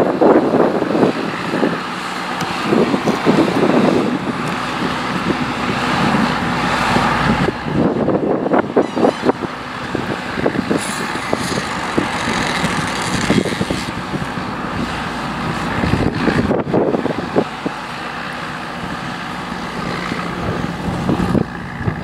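Massey Ferguson 8480 tractor's six-cylinder diesel engine running as it pulls an eight-furrow reversible plough across a field.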